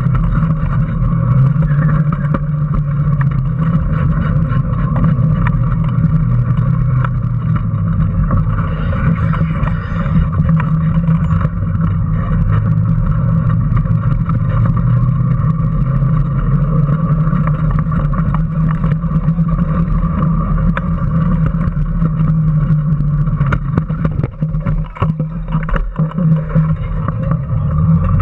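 Onboard sound of an electric Power Racing Series kart under way: a steady motor and drivetrain whine with road rumble and rattling of the chassis. It eases briefly near the end.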